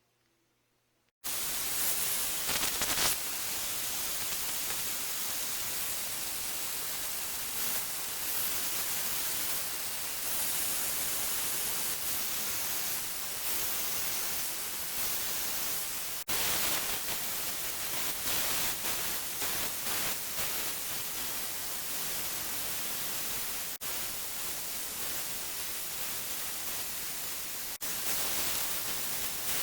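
Mini milling machine running and cutting metal, a steady hissing noise with a few brief breaks.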